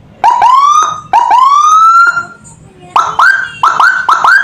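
2-in-1 electronic siren played loud through a 200 W horn speaker, sounding electronic yelp-type tones. Two short rising chirps come first, then two longer rising whoops, then a quick run of short rising chirps, about three a second, near the end.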